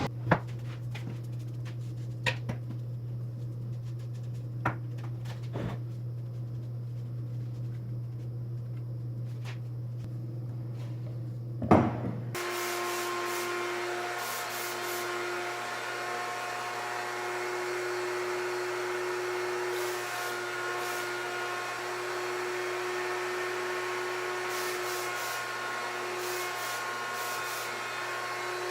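Steady workshop hum with a few sharp knocks and clicks of wooden parts being handled, the loudest about twelve seconds in. Right after it the hum gives way to a different steady machine drone with several held tones.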